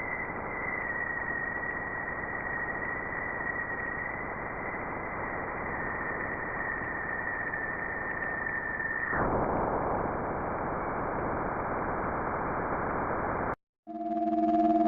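Spacecraft radio or plasma-wave recording converted into sound: a steady, static-like hiss with a thin, high, whistling tone that drifts slightly lower and stops about nine seconds in. The hiss goes on after the tone stops, then cuts off abruptly near the end.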